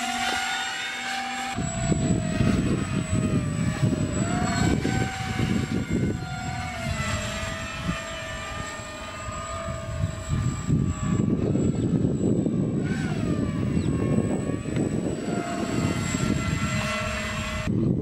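Buzzing of a homemade RC airplane's motor and propeller in flight, its pitch rising and falling as the plane passes and turns overhead.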